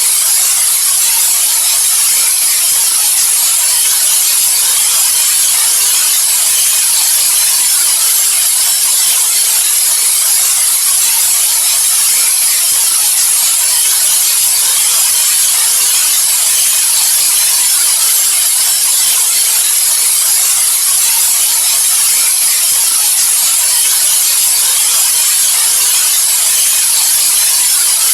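Steady white noise: a continuous, even hiss, strongest in the high frequencies with little low rumble, unchanging throughout.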